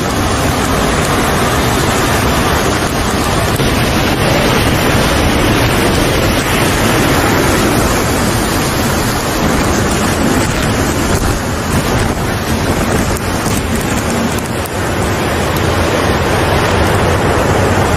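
Hurricane-force wind and driving rain: a loud, steady rush of noise with wind buffeting the microphone.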